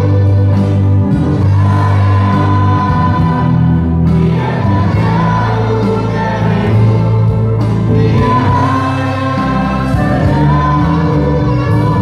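Two women singing a Christian worship song with a live band of keyboard, saxophone, electric guitar, bass and electric drums, played loud and steady.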